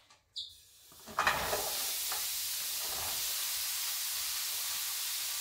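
Sliced mushrooms dropped into a hot, dry frying pan with no oil: sizzling starts suddenly about a second in and then holds steady.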